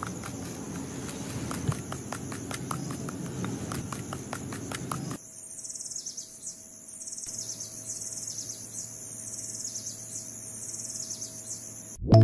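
Miniature hoe chopping and scraping into dry, gravelly soil: a rapid run of small scrapes and clicks that stops about five seconds in. A steady high insect chirring with short repeated chirps runs underneath and is left on its own once the digging stops.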